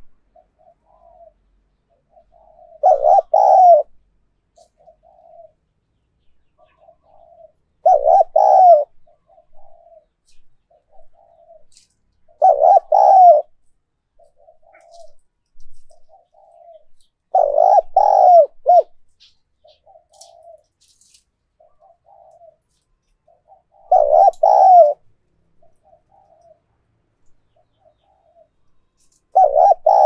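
Spotted dove cooing: a loud phrase of coos about every five seconds, six in all, with soft short coos in between.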